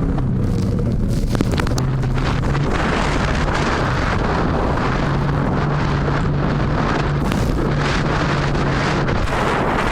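Boat engine running steadily with a low hum, under heavy wind buffeting the microphone.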